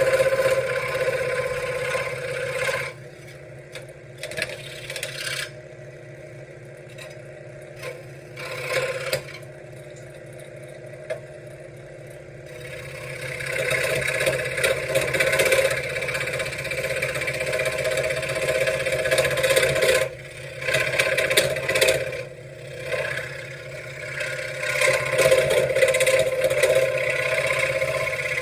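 Benchtop scroll saw running with a steady motor hum while its blade cuts wood. The louder cutting noise drops away from about three seconds in for roughly ten seconds, then returns, with a few short breaks later on.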